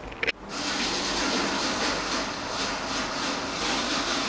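Electric screwdriver running steadily at one pitch. It starts after a short click about half a second in.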